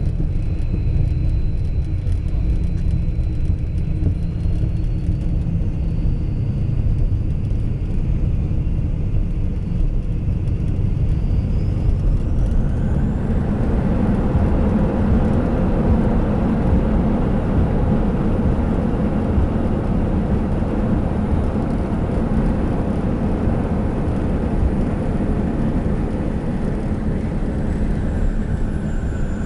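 Jet aircraft heard from inside the cabin: a steady low engine and airframe rumble. About twelve seconds in, a high turbine whine rises in pitch and the rumble grows louder as the engines spool up.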